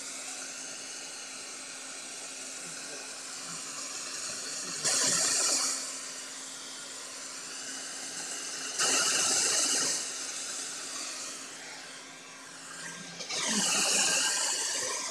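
Small handheld hair dryer blowing on wet ink and watercolour to dry the painting. It runs steadily and swells much louder three times, about five seconds in, about nine seconds in, and near the end.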